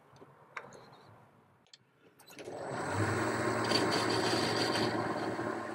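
A few light clicks as the bar is set in the three-jaw chuck, then about two seconds in the Boxford metal lathe starts and runs steadily, with a motor hum and a high whine, while chamfering the end of the bar.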